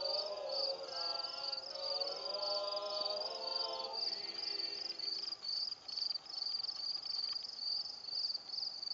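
Crickets chirping in a steady, rapidly pulsing high trill. Over them, voices sing a slow chant in long held notes for about the first five seconds, then stop and leave the crickets alone.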